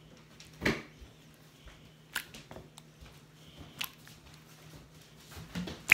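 Slime being stretched and squeezed by hand: a soft squelch about a second in, then a few small sharp clicks and pops, over a faint steady hum.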